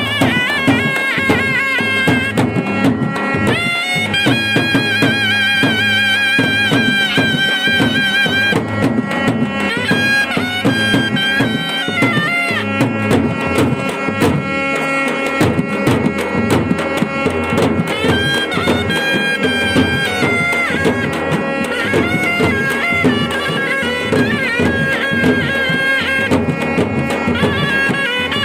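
Indian band baja playing: a loud, reedy wind melody with sliding notes over fast, continuous drumming.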